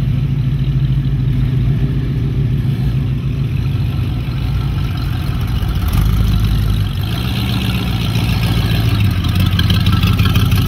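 Hot rod engines running as cars roll slowly past at low speed. About six seconds in, a louder engine comes close and its pitch rises a little as it is revved, and it stays loud through the end.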